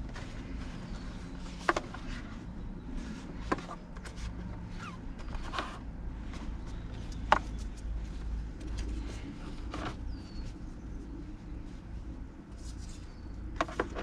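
Scattered sharp clicks and knocks, about half a dozen, two in quick succession near the end, from the plastic Graco SnugRide infant car seat base and its strap hardware being set down and handled on a car's rear seat, over a steady low hum.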